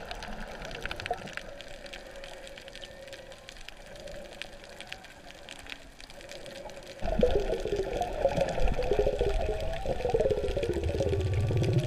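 Water sloshing and bubbling around an underwater camera held by a snorkeler, moderate at first, then suddenly louder and fuller with bubbling about seven seconds in.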